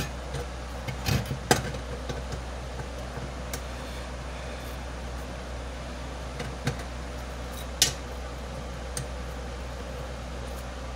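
Scattered sharp metallic clicks and taps of an adjustable wrench working the bolts of a small blower fan motor as they are tightened, over a steady low hum.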